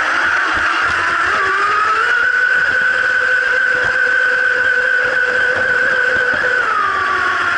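RC model boat's motor whining at speed over a steady rush of water and wind. The pitch rises a second or two in, holds steady, then drops near the end as the throttle eases.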